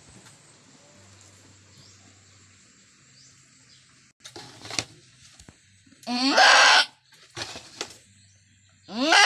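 A goat bleating loudly twice, about six seconds in and again near the end, each call rising in pitch at its start. Shorter, fainter noises come between the calls.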